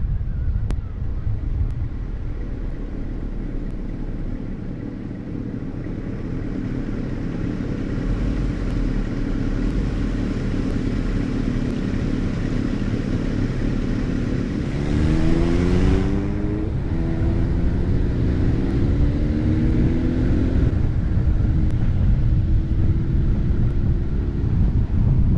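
Car driving on the road, with steady road and wind noise. About fifteen seconds in, an engine revs up in several rising steps, as if climbing through the gears, with a brief brighter rush as it starts.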